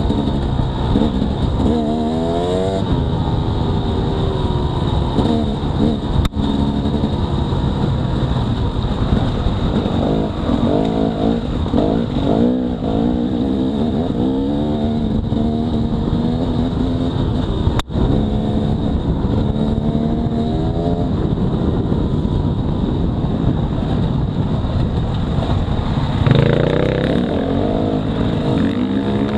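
Dirt bike engine running under hard riding, revving up and falling back again and again as the throttle opens and the gears change. The sound drops out for an instant twice.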